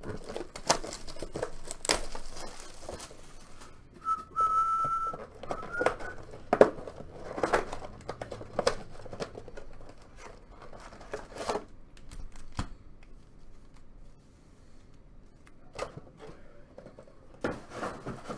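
Plastic shrink-wrap crinkling and tearing off a cardboard trading-card mega box, then the box's cardboard flaps tearing open and the packs inside being handled, a run of short rustles and cracks. A short high whistling tone sounds about four seconds in, with a brief rising one just after.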